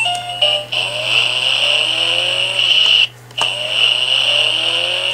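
Electronic engine-revving sound effect from a baby's toy car, played twice through its small speaker with a short break between, each a steady buzzing engine noise with repeated rising revs. It comes right after the last notes of the toy's electronic tune.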